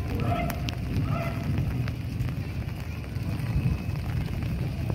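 Heavy rain pouring steadily, with a low rumbling wash and scattered sharp ticks of drops striking close by.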